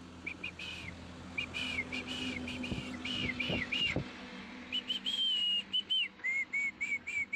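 Runs of short whistled notes, each rising and then dropping away, about three or four a second, with one longer held note about five seconds in. A few low thuds come in the middle.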